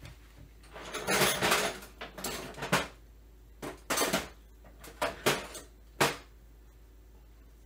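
A series of short metallic and plastic clatters and clicks from a chainsaw being handled and worked over, the busiest about a second in and a last sharp click about six seconds in.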